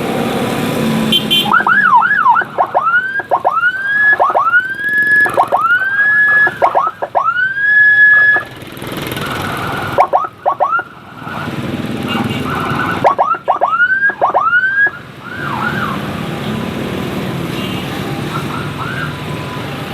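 Electronic escort siren sounding the 'setan' pattern: quick rising whoops, about one and a half a second, each climbing and briefly holding at the top. It plays in bursts of several seconds, stopping twice and coming back, with steady road noise in the gaps.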